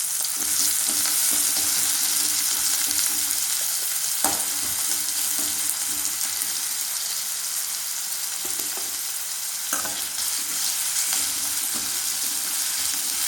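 Chopped onions sizzling in hot oil in a kadai as they sauté toward half soft, stirred, with two sharp knocks against the pan about four and ten seconds in.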